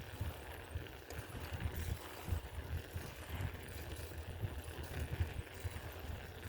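Wind buffeting the microphone while riding a bike: an uneven, gusting low rumble over a light steady hiss.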